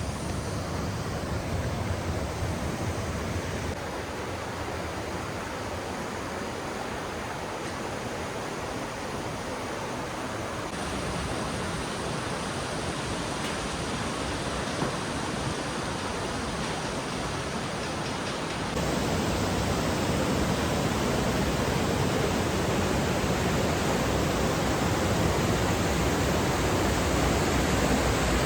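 Rushing water of a canyon creek and its waterfalls, a steady noisy rush heard in several joined takes that change abruptly in level, louder for the last third.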